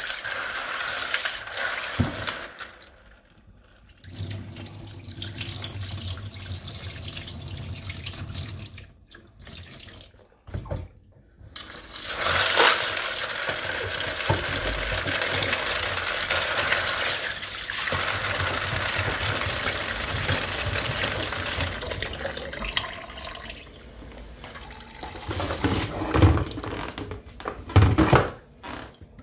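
Kitchen tap running into a plastic bowl of black-eyed beans in a stainless steel sink as the beans are washed by hand, the water stopping and starting. A few knocks near the end.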